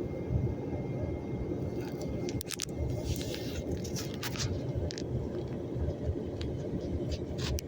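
Storm wind gusting as a dense, fluctuating low rumble, with scattered sharp ticks and rattles, a cluster of them a few seconds in and again near the end.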